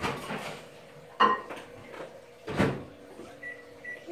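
Kitchen cupboard doors being opened and knocked shut: a few short knocks and thuds, the sharpest about a second in. A few short high beeps follow near the end.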